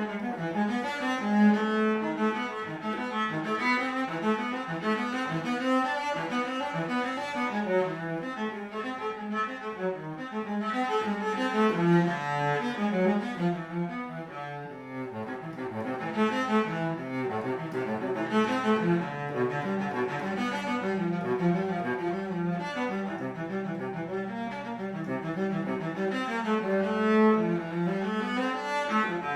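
A 2015 Frederich Holtier cello, built after an Alessandro Gagliano model, played with the bow in a continuous passage of moving and held notes.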